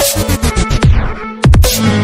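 Electronic background music with a heavy beat and bass notes that sweep down in pitch; it thins out briefly past the middle, then comes back in on a hard hit.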